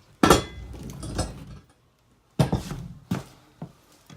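Steel engine-stand tube being tipped up and slid into its socket: a loud metal clank with scraping, then a second run of knocks and rattles, and a short click near the end.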